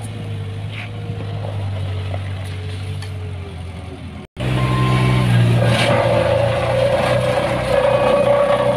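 Diesel engines of asphalt paving machinery running steadily. After a brief dropout a little before halfway, a Caterpillar tandem asphalt roller's engine runs close by, louder and steady.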